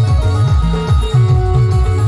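Loud live band music: a heavy bass line repeating in a quick, even pattern under a fast melody.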